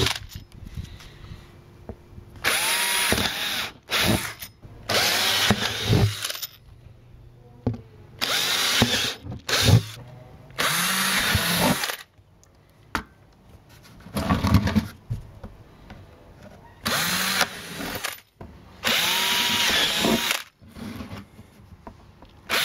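Bosch cordless drill boring holes through a black plastic trash can, run in short bursts of about a second each, roughly eight times. The motor's pitch rises as it spins up at the start of each burst.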